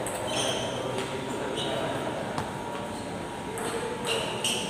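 Table tennis balls ticking off bats and tables in a hall with several tables in play, a few single ticks and then a quicker run of hits near the end, over a murmur of voices.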